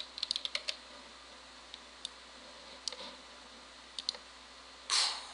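Clicks from a computer mouse and keyboard: a quick run of several clicks at the start, then single clicks spaced a second or so apart. A short rush of breath-like noise comes near the end.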